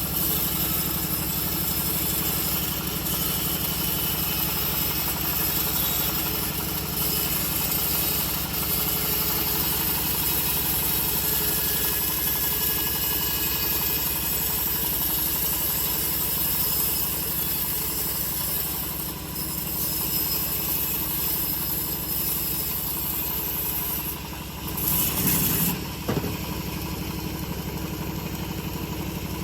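Engine of a home-built bandsaw mill running steadily as the mill saws teak, with a brief louder, noisier stretch about 25 seconds in.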